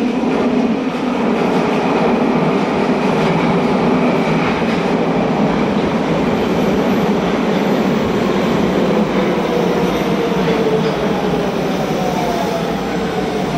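Nagoya Municipal Subway train running into an underground station platform: a loud rumble and rattle of wheels on the rails and passing cars, with a falling whine in the second half as the train slows to stop.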